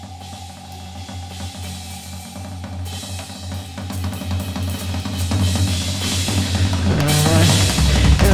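Free-improvised noise music: a Roland TD-17 electronic drum kit played in dense, rapid hits with cymbal wash over a low synth drone, building steadily louder. A wobbling pitched tone comes in near the end.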